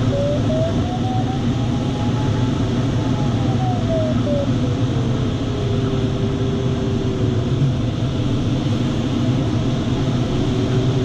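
Steady rush of airflow inside a glider cockpit, with the variometer's continuous electronic tone sliding up in pitch over the first couple of seconds, then falling and holding low from about seven seconds in: a falling vario tone signals the glider going from climb into sink.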